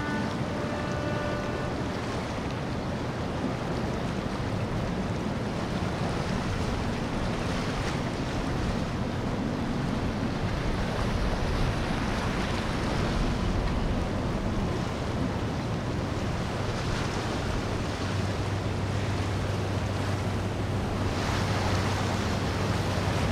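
Boat engines running amid rushing, churning water, with wind buffeting the microphone. A steady low engine hum grows stronger over the last few seconds.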